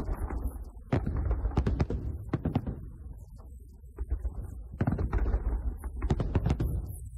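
Aerial fireworks shells of a festive salute bursting: clusters of bangs, several a second at times, over a continuous low rumble, with a quieter lull about three to four seconds in.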